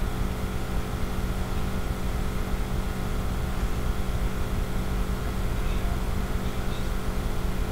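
Steady low droning hum with several constant tones in it, unchanging throughout; no separate knocks or clicks stand out.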